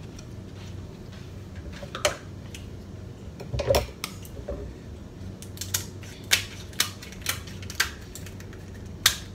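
Snow crab leg shells being cracked and snapped apart by hand: a string of sharp cracks and clicks, the first about two seconds in, then several more every half second or so.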